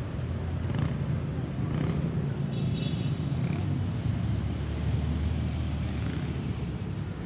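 A motor vehicle's engine running with a low, steady rumble.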